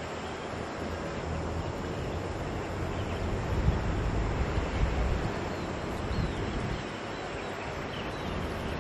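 Wind buffeting the microphone in gusts, over a steady outdoor hiss, with a few faint high chirps.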